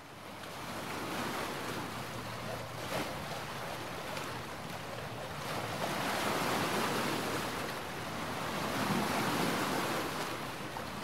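Sea surf and wind, a steady rushing that fades in at the start and swells and ebbs, with one brief sharp hit about three seconds in.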